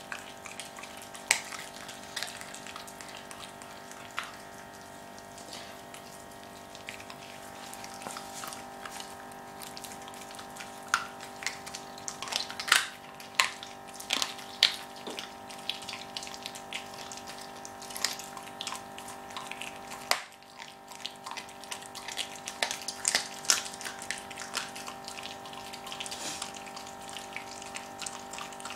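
A Jack Russell terrier chewing a raw squirrel carcass: wet smacking and crunching with irregular sharp cracks, coming thicker in the second half. A steady low hum runs underneath.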